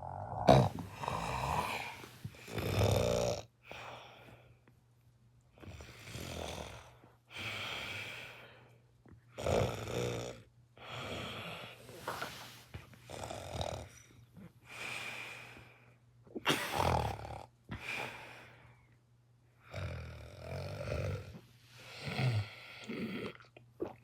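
A person snoring in an odd, rapid run of snores, about one every one to two seconds and uneven in length and strength.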